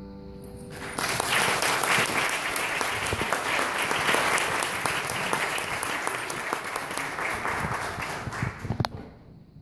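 An audience claps, starting about a second in after the last cello note dies away, and thinning out near the end.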